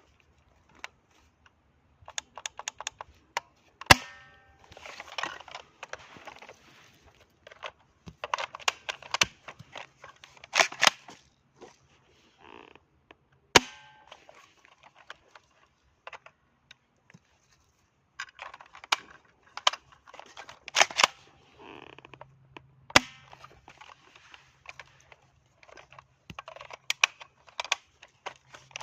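Plastic airsoft shotgun replica firing three sharp shots, roughly ten seconds apart, during a chronograph velocity test. Clattering handling and loading noises fill the gaps between the shots.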